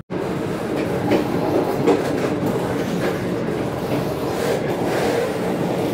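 Passenger train running along the track, heard from inside the coach: a steady rumble and rattle of wheels on rail, with sharp clicks every second or so as the wheels cross rail joints.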